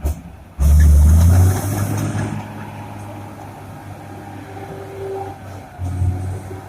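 Komatsu D70LE bulldozer's diesel engine surging loudly under load just after the start for about a second, then running steadily with a faint whine.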